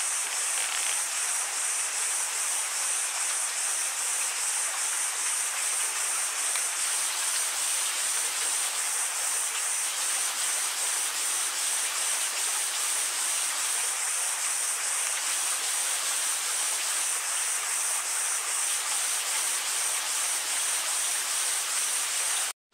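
Steady rushing of water in a rocky mountain stream, an even hiss with a bright high edge. It cuts off suddenly at the very end.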